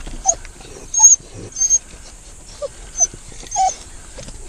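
Hunting dogs barking in short, separate yelps, about six spread over a few seconds.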